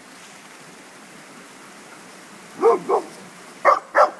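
A dog barking: two quick pairs of short, sharp barks, starting a little past halfway through.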